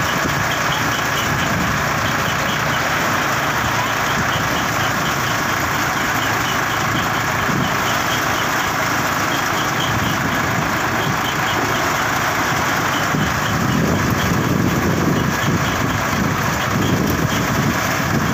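Tractor-driven thresher running steadily with the tractor engine, its drum churning through the leafy crop plants being fed into the hopper. The low churning grows heavier near the end.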